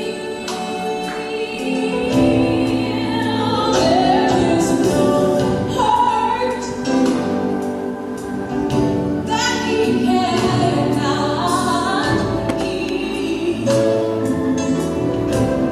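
Music with singing: a song with a lead voice held over a steady bass and beat.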